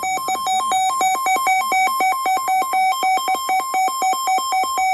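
Electronic alert tone: fast synthesized beeping that hops between a lower and a higher pitch several times a second, buzzy and loud, heralding an emergency alert broadcast.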